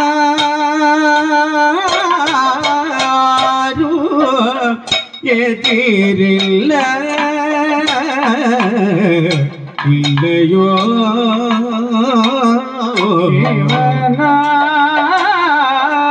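Kathakali music: male singers in a heavily ornamented Carnatic-style melody, with constant sliding and wavering pitch, accompanied by strokes on the chenda and maddalam drums.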